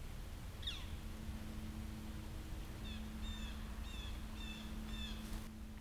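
A bird calling: one falling note, then a run of five short, slightly falling nasal notes about two a second, over a steady low hum, cutting off abruptly near the end.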